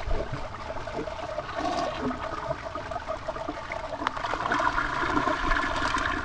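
Toilet flushing: a steady rush of water that grows stronger and brighter about four and a half seconds in.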